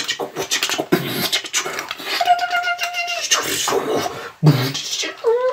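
A person beatboxing: mouth-made kick-drum thumps and clicks and hisses, with one held sung note a couple of seconds in.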